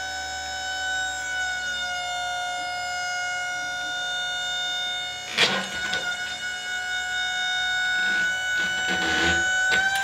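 Hydraulics of a Wood-Mizer LT40 Wide sawmill whining steadily at one high pitch while the log turner rolls and lifts a large log. The pitch sags slightly under load, with a sharp knock about halfway through and a few lighter clunks near the end as the log shifts on the arms.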